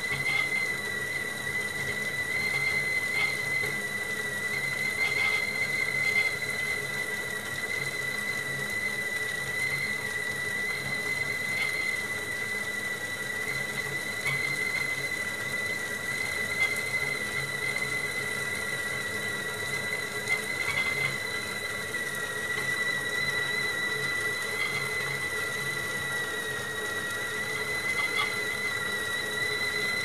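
Stovetop whistling kettle whistling at the boil: one steady, unbroken high whistle that holds its pitch with only a slight waver, the sign that the water has come to the boil.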